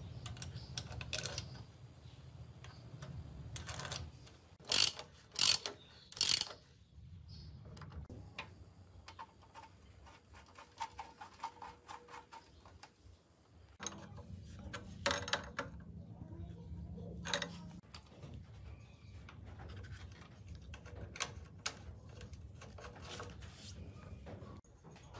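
Small metal engine parts and fittings clicking and clinking as they are handled and fitted onto an engine, with three louder sharp clicks about five to six seconds in and scattered lighter ticks throughout.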